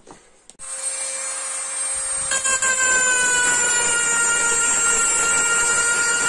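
Handheld rotary tool (engraver) starting up about half a second in and running with a steady whine. About two seconds in, a homemade drum burr made from a lighter's spark wheel starts grinding a soft copper tube, adding higher steady tones that sag slightly in pitch under the load.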